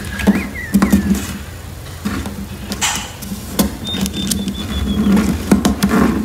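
Sheet of origami paper being folded and creased by hand: irregular crinkling, rustling and sharp clicks.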